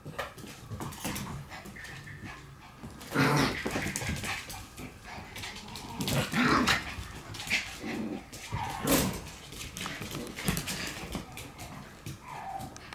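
Shiba Inu puppies playing together, giving short barks and yips, loudest about three, six and nine seconds in.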